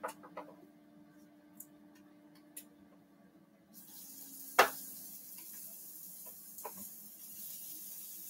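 A few light clicks, then a steady high hiss that starts nearly four seconds in and lasts about five seconds, with one sharp knock just after it begins and a couple of light taps later.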